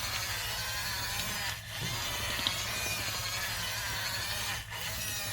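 Remote-control toy bulldozer running its built-in demo: a continuous whirring of its small motors and gears, broken by two short dips as it switches movements.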